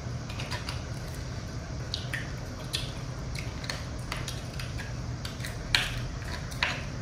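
Scattered light clicks and taps of utensils against dishes during a meal, about a dozen in all, the loudest a little before the end, over a steady low hum.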